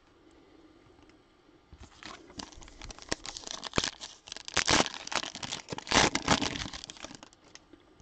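Plastic wrapper of a Donruss basketball card pack being crinkled and torn open by hand, starting about two seconds in, with a run of sharp crackles.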